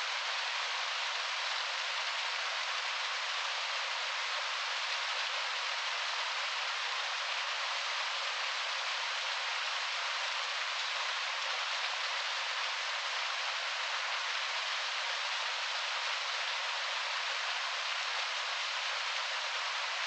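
Small waterfall cascading over rocks into a stream: a steady, even rushing hiss of falling and splashing water, thin and without any deep rumble.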